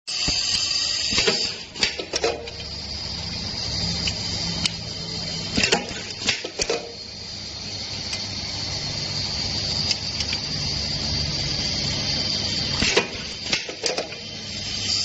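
Hydro-pneumatic dual-channel riveting machine with a steady hiss and low hum. Several clusters of sharp metallic clacks and knocks break in as it cycles and the steel shelf channel is set on and lifted off its rivet heads.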